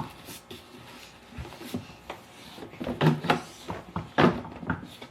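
Plastic parts of a boxed animatronic figure being handled and pushed together during assembly: scattered knocks, clicks and rubbing, busiest in the second half.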